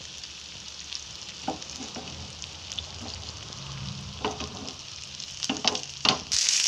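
Coconut oil sizzling and crackling under masala-coated Indian mackerel (bangude) shallow-frying in a pan: a steady hiss with scattered pops. Near the end it suddenly gets louder.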